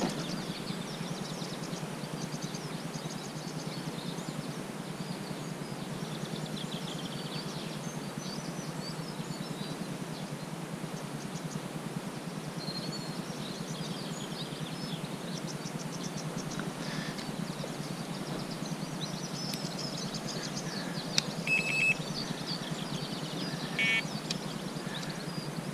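Outdoor lakeside ambience: a steady low background noise with small birds chirping and singing throughout. Near the end come two short high beeps a couple of seconds apart.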